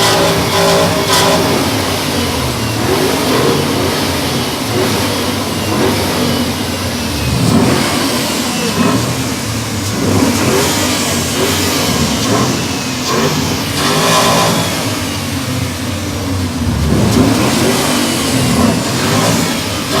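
Ford Mustang engines revving again and again, the engine note rising and falling with each blip of the throttle.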